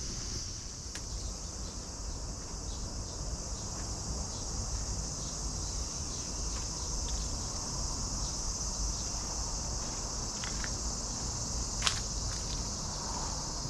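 Steady, high-pitched chorus of insects in the trees, with a few faint ticks and one sharp click near the end.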